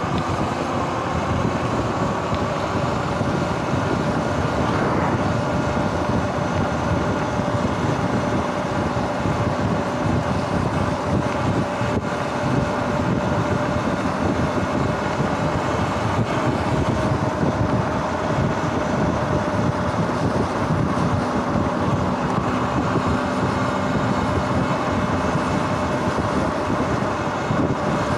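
Electric dirt bike at cruising speed: a steady motor whine that drops in pitch over the first couple of seconds and then holds, over wind rush on the microphone and tyre hiss on wet asphalt.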